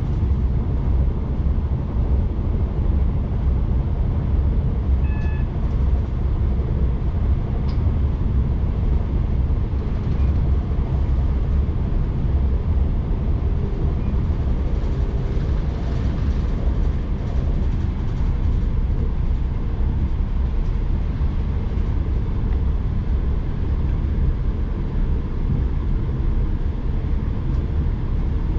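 Chiltern Railways diesel train running along the line, heard from inside the carriage as a steady, loud low rumble of wheels on rail and engine.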